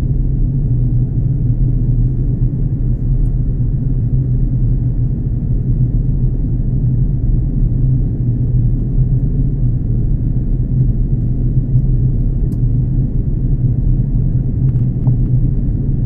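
Steady low rumble of an Airbus A330 jet airliner heard inside the passenger cabin: engine and airflow noise.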